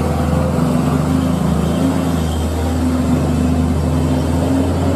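Truck's diesel engine running with a steady low drone.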